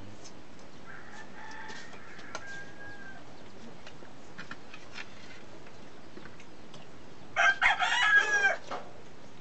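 A rooster crowing loudly once, about seven and a half seconds in, for about a second and a half. A fainter, more distant crow comes about a second in.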